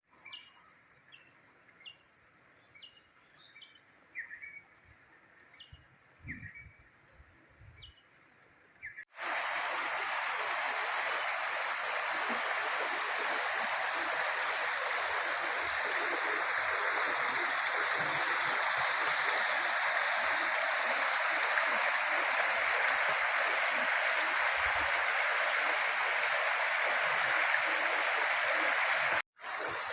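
Short bird chirps over a quiet background. About nine seconds in, the sound cuts abruptly to the loud, steady rush of floodwater flowing, which runs without a break until another abrupt cut near the end.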